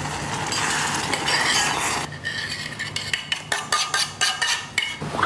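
A metal spoon stirring and scraping inside a stainless steel saucepan. From about two seconds in come a run of quick clinks and taps as the spoon knocks and scrapes the contents out of the tipped pan into a bowl.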